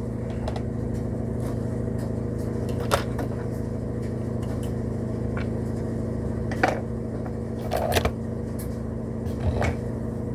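Steady low electrical hum from the model-train setup, with a few short clicks and taps of plastic track pieces being handled.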